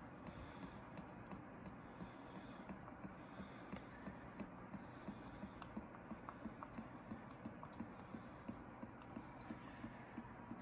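Motor oil glugging out of an upturned plastic bottle into a funnel in a tractor engine's oil filler: faint, quick little clicks and gurgles, a few a second, as air bubbles back into the bottle.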